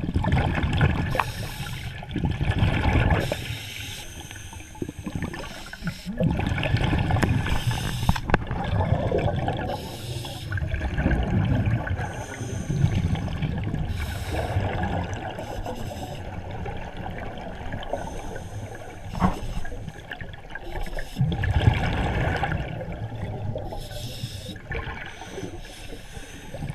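Scuba regulator exhaust heard underwater through a camera's waterproof housing: a diver exhaling, each breath a loud burst of bubbling rumble, repeating every few seconds with quieter stretches between.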